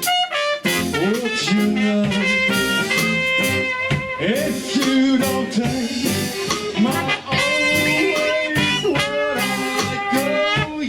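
Band playing an instrumental passage of a song with no singing, horn-like melody lines over drums.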